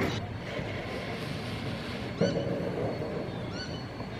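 BB18¼ class steam locomotive moving slowly, a steady rumble, with a bird calling twice: about two seconds in and again near the end.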